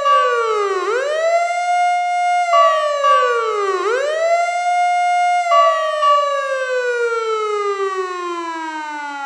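Fire truck siren wailing. Its pitch drops and sweeps back up to a held high tone twice, then falls in one long, slow glide through the second half.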